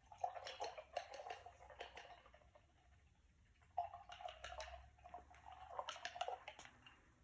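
A paintbrush being swished and knocked about in a jar of rinse water to clean the paint out of it, in two faint bouts of small clicks and splashes.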